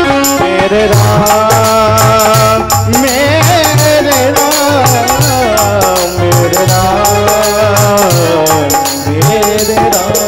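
Instrumental interlude of a Hindi devotional bhajan: a held melody that slides up and down between notes over a steady hand-drum beat with sharp, regular percussion clicks.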